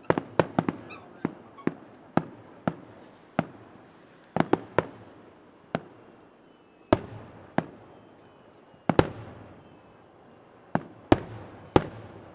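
Aerial fireworks bursting: an irregular run of sharp bangs, bunched together in the first second and again around four and a half seconds, with single bangs spaced between. One loud bang near nine seconds trails off in a longer rumble.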